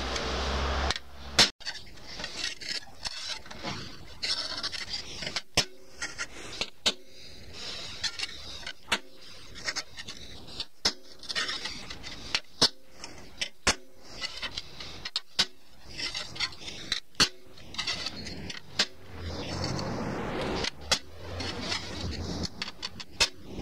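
A soft hammer striking the teeth of a circular saw blade one by one, bending alternate teeth to set them; the blows come irregularly, about one or two a second. Each blow is meant to sound the same as the last, the sign that the teeth are being bent evenly.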